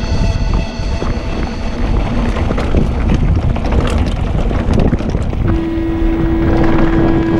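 Wind rumbling on the camera microphone as a mountain bike rolls fast down rocky dirt singletrack, with many small clicks and rattles from the tyres and bike over stones. A steady held tone comes in about two-thirds of the way through.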